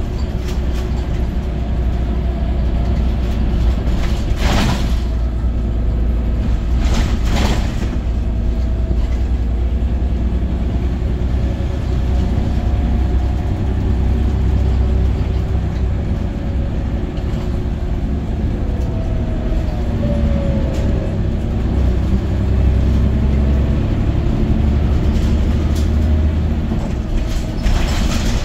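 Scania OmniCity city bus heard from inside the passenger cabin while driving: a steady low engine and road rumble, with two short clatters about four and seven seconds in and a faint whine that slides in pitch about two-thirds of the way through.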